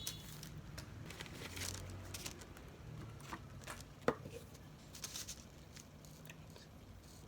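Faint rustling and crinkling of packaging being handled, with scattered light clicks and taps, over a low steady room hum.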